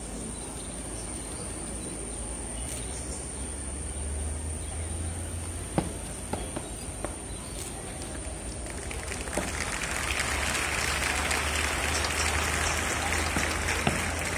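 Outdoor background noise: a steady low rumble, one sharp knock about six seconds in, and a dense hiss that comes up about nine seconds in and holds.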